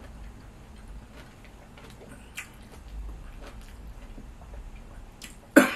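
Close-up eating sounds: scattered soft clicks of chewing and of fingers working in a plastic food container. Near the end a sudden loud dry cough breaks out, the loudest sound here.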